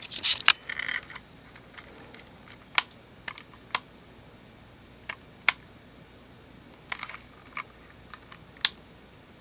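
Push-buttons on a Homestead Homestar ceiling-fan wall control clicking as they are pressed: a quick flurry at the start, then single clicks every half second to second and a half. The switches are finicky and need pressing again and again.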